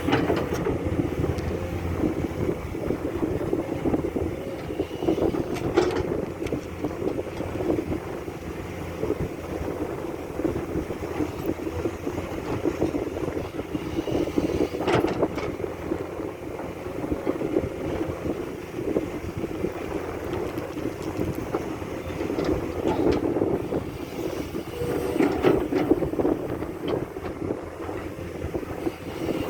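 Komatsu hydraulic excavator working, its diesel engine running steadily under load and swelling and easing as it works, with a few sharp clanks spread through.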